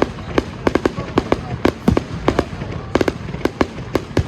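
Fireworks going off: a rapid, irregular run of sharp bangs, several a second, over a continuous low rumble.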